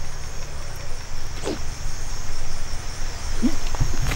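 Steady high-pitched insect chirring over a low rumble, with a short sliding cry about a second and a half in and a brief voice-like call near the end.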